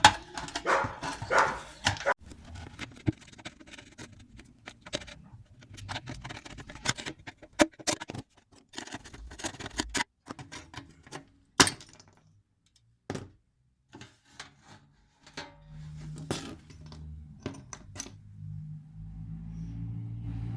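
Scattered metal clinks, taps and knocks from handling the rusty steel tool box and its parts. A low hum comes in over the last few seconds.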